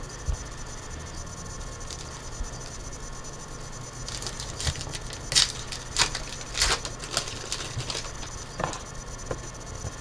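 Foil trading-card pack wrapper crinkling and being torn open by hand, a rapid run of crackly bursts from about four seconds in that trails off into a few light rustles, after some faint shuffling of cards.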